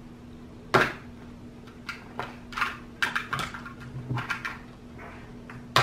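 Plastic canister and scoop of powdered play-slime mix being handled: a sharp knock about a second in, then a run of short scratching and crinkling clicks, and another knock near the end, over a faint steady hum.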